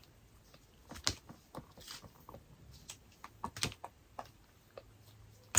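Scattered light clicks and taps of photocards and their plastic packaging being handled and set down, irregular and quiet.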